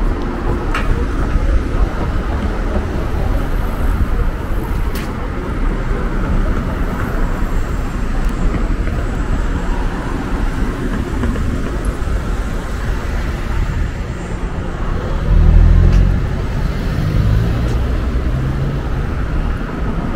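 City street traffic: cars running and passing along a busy avenue. A louder vehicle goes by about three-quarters of the way through.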